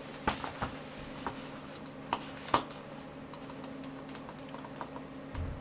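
Scattered clicks of a computer mouse and keyboard, a few louder ones among lighter taps, as arrows are drawn in a chess program, over a steady low hum.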